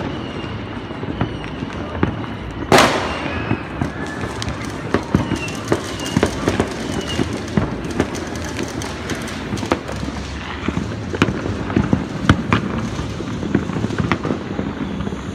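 Fireworks and firecrackers going off all over the city: a continuous scatter of pops and bangs near and far, with one much louder bang that echoes about three seconds in. A few short high whistles come in the middle.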